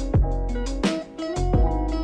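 Background music: a plucked, guitar-like melody over a beat with heavy bass hits.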